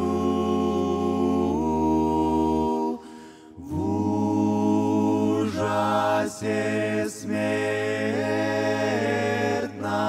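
Male vocal group of five singing a Russian hymn unaccompanied in close harmony, holding long, slow chords over a sustained bass note. The singing breaks off briefly about three seconds in for a breath, then the chords resume and shift several times.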